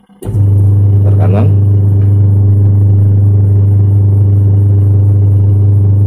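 Twin-tub washing machine's wash motor switching on and turning the pulsator in the empty wash tub: a loud, steady hum with a short rising whine about a second in as it spins up, cutting off at the end. This is one run of the newly replaced wash timer's on-off cycle.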